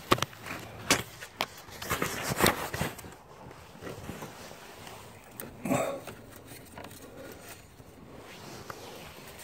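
Handling noise from a phone being moved about: scattered clicks and knocks in the first few seconds, a louder rustle of fabric against the microphone near the middle, then a low steady background.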